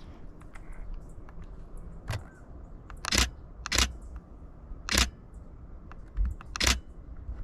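Canon Rebel T7i DSLR shutter firing single frames: about five sharp clicks, spaced unevenly about a second apart.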